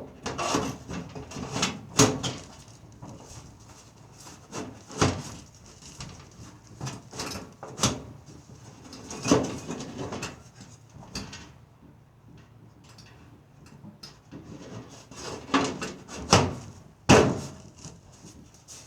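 Sheet-metal furnace service panel being worked back into place: scattered clanks, knocks and scrapes, the sharpest knock near the end.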